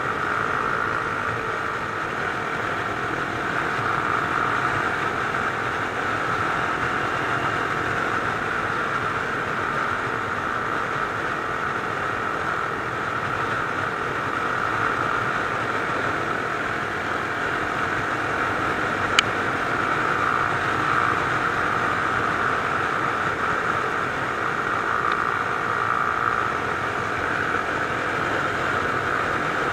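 Mash Cafe Racer 250cc motorcycle engine running steadily while cruising in fifth gear, heard from on board with road and wind noise. A single sharp click sounds about 19 seconds in.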